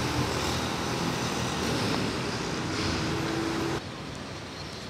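Road traffic on a busy multi-lane avenue: a steady wash of tyre and engine noise with a low hum that grows stronger for about a second before the sound cuts off abruptly to a quieter background, about four seconds in.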